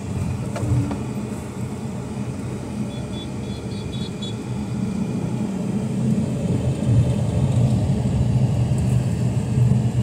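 Road noise of a moving car, heard from inside: a steady low rumble of engine and tyres that grows a little louder toward the end.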